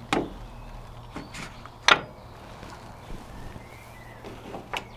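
Sharp metal clicks and clanks of tools and brake parts being handled during front brake caliper work. The loudest comes about two seconds in, with others at the start and near the end.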